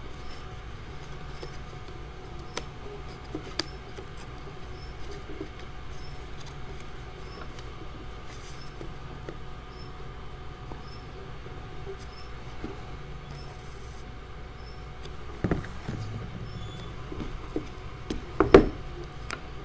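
Hands working paper strips into a woven watercolor and securing them on a table: faint rustles and light taps over a steady background hum, with two louder knocks about fifteen and eighteen seconds in.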